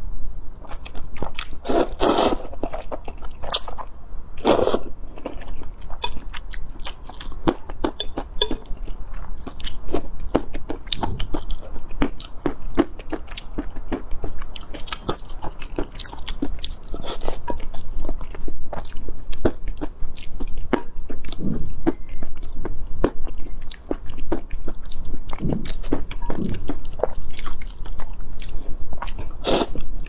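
Close-miked eating of noodles: slurping strands in with several louder slurps, and chewing with many small wet mouth clicks.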